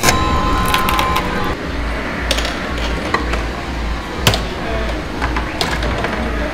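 Arcade ambience around a coin-op steel-ball pinball game: scattered sharp clicks and clacks of the balls and mechanism, with a steady beep-like tone over the first second and a half and a low pulse about twice a second after that.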